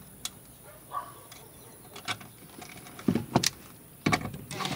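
Scattered light clicks and rattles of hand tools and wiring parts being handled. About four seconds in, a louder noise starts as a cordless drill/driver is set on a bolt by the harness.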